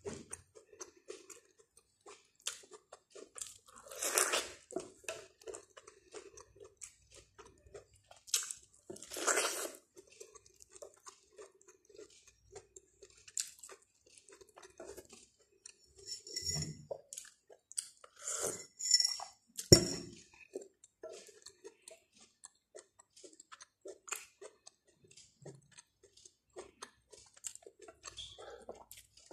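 Close-up chewing and biting of boiled corn on the cob, in irregular bursts with short pauses and a few louder bites.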